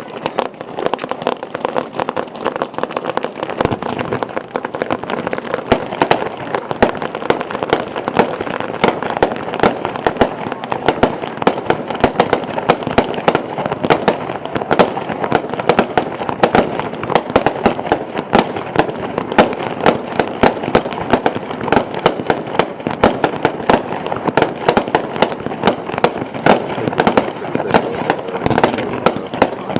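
1.4G consumer aerial fireworks going off in a continuous barrage: many rapid bangs and pops, several a second, over a steady crackling hiss.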